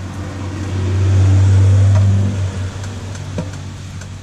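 A road vehicle passing on a nearby highway: its low engine rumble swells to its loudest about a second and a half in, then fades away.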